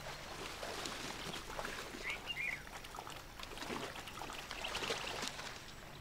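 Water trickling and sloshing faintly as an Indian rhinoceros wallows in a muddy pool, with scattered small splashes and a short high call about two seconds in.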